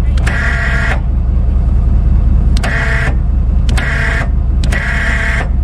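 A vehicle engine running steadily, with a motor whine that switches on and cuts off sharply four times, each burst lasting under a second.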